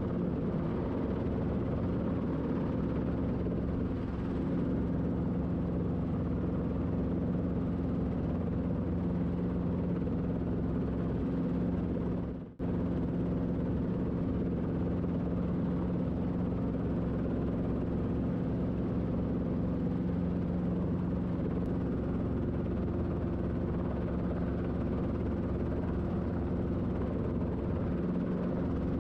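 Robinson R22 Beta II helicopter heard from inside its cockpit while hovering: a steady drone of its four-cylinder Lycoming piston engine and rotors with a constant low hum. The sound cuts out for a split second about twelve seconds in.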